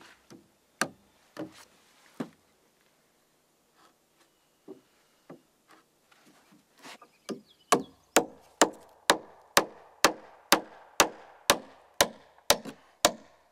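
Hammer driving nails into a wooden 2x6 door frame: a few scattered blows, then from about seven seconds in a steady run of sharp strikes, about two a second.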